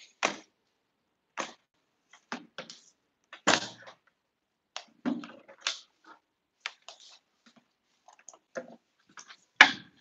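Kittens' claws scrabbling and scratching on cardboard as they play-fight in a box: short, irregular scuffles with gaps between them, the loudest about a second before the end.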